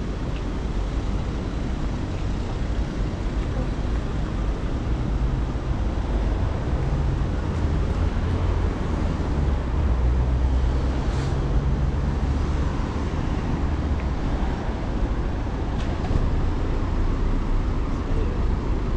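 Outdoor city noise with the low rumble of a passing engine, swelling in the middle and easing off again.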